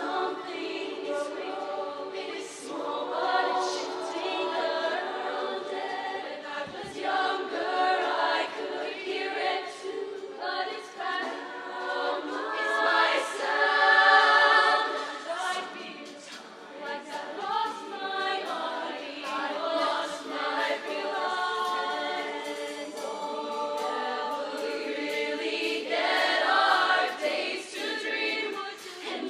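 Show choir singing together, swelling to its loudest about halfway through.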